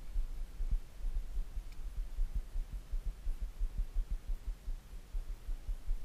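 Wind buffeting the camera's microphone: an irregular low rumble with soft thumps and nothing higher above it.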